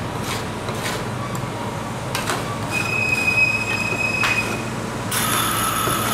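Steel spatula scraping and spreading ice cream across a frozen metal plate, with a few sharp taps. In the middle the blade squeals high and steady on the metal for about two seconds, and near the end it gives a harsher scrape.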